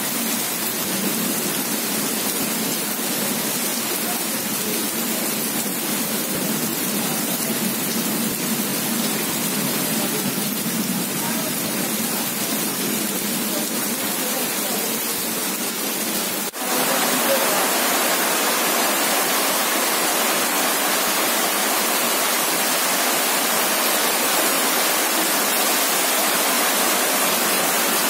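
Heavy rain pouring down steadily as a dense, even hiss. About halfway through it drops out for an instant and comes back louder and more even.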